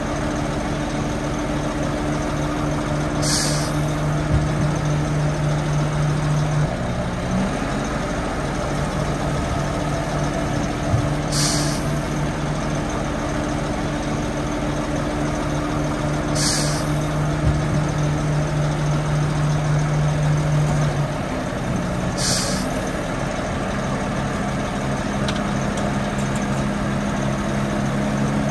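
Heavy earthmoving machinery's diesel engine running steadily, its pitch shifting about a quarter of the way in and again about three quarters in, with four short sharp hisses at irregular intervals.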